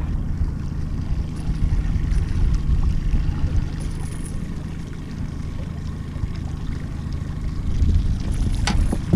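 Small outboard motor running steadily at low trolling speed, with a single sharp click near the end.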